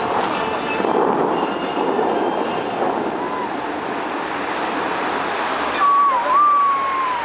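Steady rushing hiss of the Dubai Fountain's high water jets shooting up and falling as spray. Near the end a loud whistle sounds, dipping once and then sliding down in pitch.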